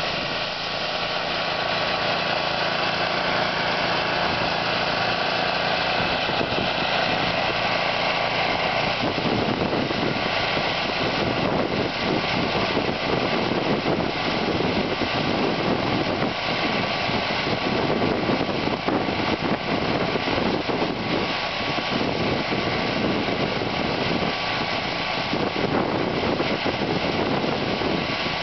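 Two-stage snowblower's small gas engine running steadily under load as its auger and impeller throw grain, with a dense hiss over the engine note that grows rougher about nine seconds in.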